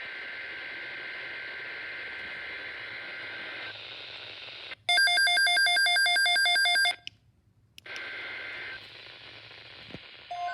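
Radio static hiss, cut by about two seconds of a loud, rapidly pulsing, ringing electronic tone. A brief silence follows, then the static returns.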